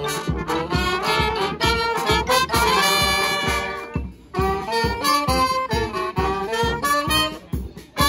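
Live brass band playing: trumpets, trombones, saxophones and sousaphone over a drum kit's steady beat. The music drops out briefly about halfway through and again near the end, then comes back in.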